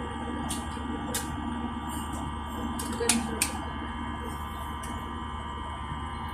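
Steady airliner cabin drone in flight: jet engine hum with several steady high tones, and a few faint clicks.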